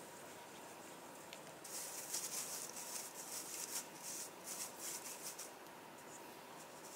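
Fingers rubbing a dry flour mix through a stainless-steel wire mesh sieve: a dry, scratchy rustle in quick, irregular strokes that starts about two seconds in and stops after about four seconds.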